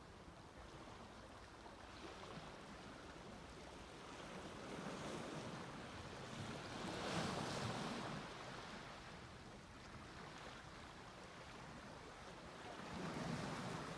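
Sea waves washing onto a beach: a wave swells and breaks about halfway through, and another swells near the end.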